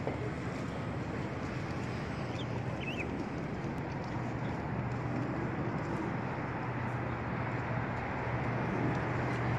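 Steady city traffic noise with a constant low hum. There are a couple of brief high chirps about two and a half to three seconds in.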